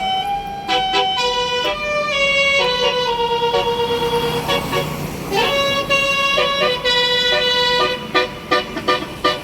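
Indonesian bus 'telolet basuri' musical horn playing a melody of held, stepped notes with a couple of rising pitch slides. A rush of noise comes through about four to five seconds in, and near the end the horn switches to quick short toots.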